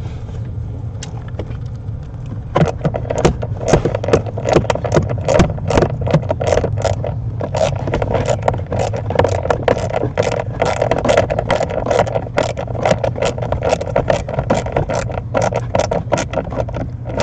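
Hand ratchet clicking in quick repeated strokes as it drives in the screws of a car's blend door actuator, starting a couple of seconds in, over a steady low hum.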